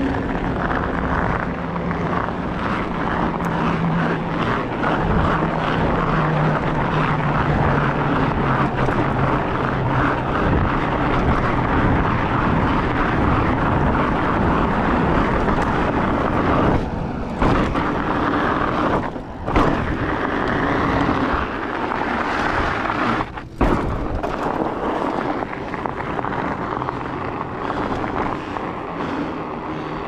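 Steady wind noise on an action camera's microphone while riding a Rocky Mountain Blizzard fat bike, with the hum of its wide knobby tyres rolling on pavement. The tyre hum falls in pitch over the first ten seconds, and the wind noise drops out briefly a few times in the second half.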